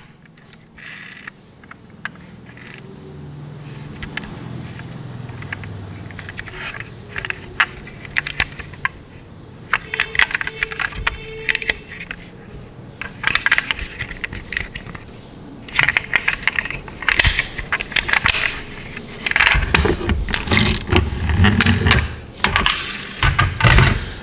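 Die-cast toy SUV being handled: its doors clicking open and shut, with small metal and plastic taps and clicks. Near the end, a run of louder clattering knocks as die-cast toy cars strike one another and the table.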